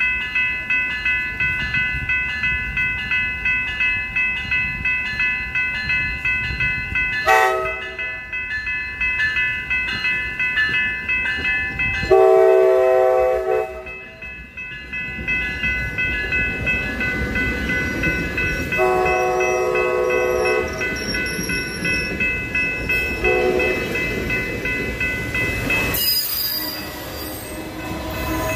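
Grade-crossing warning bell ringing about twice a second while a COASTER commuter train sounds its multi-note air horn: a short toot, two long blasts and a short one. From about halfway through, the train's wheels rumble over the rails as it rolls through the crossing.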